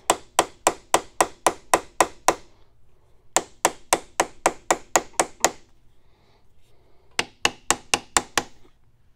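Light mallet taps on the metal end cap of a Cincinnati 1-18 milling machine's table drive, knocking at it to work it loose. There are three quick runs of sharp taps, about four a second, with short pauses between them.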